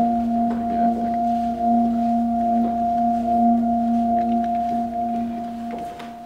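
Sustained ringing drone sound effect, a low tone and a higher one held together with a slow wavering pulse, fading out about six seconds in.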